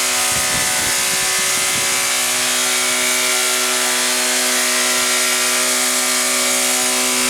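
Toyota car engine running at high revs, held at a steady pitch without letting off. With no radiator fitted, it is overheating on its way to destroying itself.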